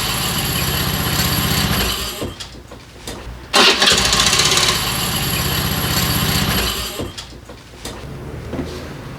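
Honda SCR100i scooter's single-cylinder engine started on its electric starter with the newly replaced pinion gear. It runs for a few seconds and stops about two seconds in, then starts again sharply about three and a half seconds in, runs, and stops near the seven-second mark. The starter now engages, so the no-start fault is fixed.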